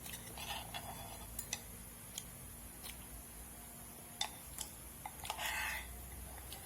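Eating sounds from an instant-noodle meal: scattered light clicks and taps of utensils against a bowl, with a short slurp-like rush of noise near the end.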